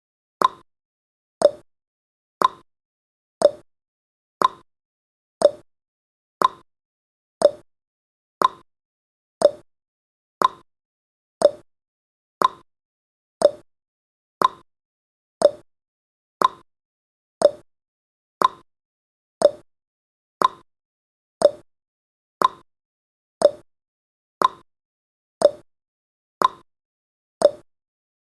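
Countdown timer's tick sound effect: one short tick every second, evenly spaced.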